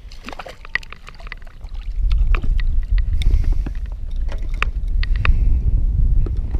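Crucian carp flapping against the floor of an inflatable PVC boat after being swung in on the line, with scattered clicks and knocks from handled tackle. From about two seconds in, the flapping becomes a loud, fast, low drumming and is the loudest sound.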